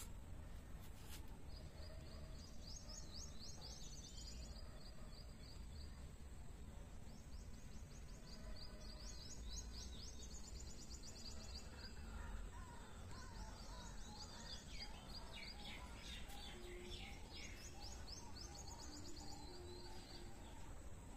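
Small birds chirping in quick high trills, in several bursts a few seconds long, over a faint low background rumble.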